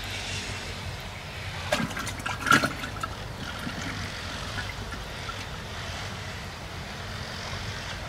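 A steady low motor hum runs under faint water sounds. Two small splashes in the water come near the float about two seconds in, the second one louder.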